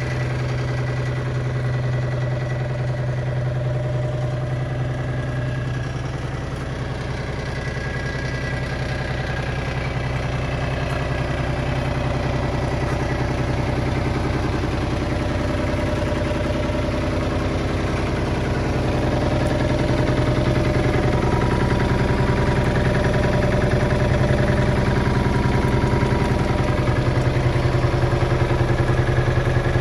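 Komatsu PC10-6 mini excavator's three-cylinder diesel engine idling steadily with an even low firing beat, growing a little louder in the second half.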